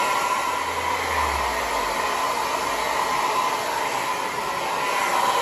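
Hand-held hair dryer running steadily: a constant rush of air with a steady whine, blowing on hair.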